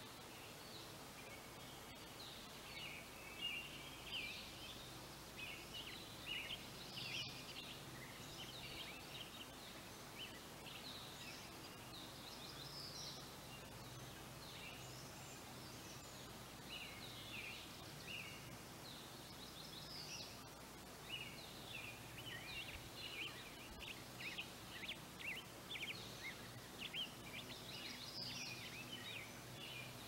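Birds singing in quick, chirping notes, busiest in two stretches, early on and again in the second half, over a faint steady outdoor background.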